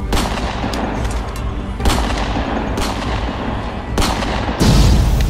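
Four sharp gunshots with a ringing tail, spaced roughly a second apart, then a louder, deeper boom near the end, all over background music.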